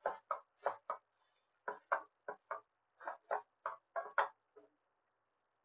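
Wooden spatula stirring and scraping thick sambal chilli paste around a non-stick wok in quick rhythmic strokes, about three a second. The stirring pauses about a second in and stops a little past four seconds.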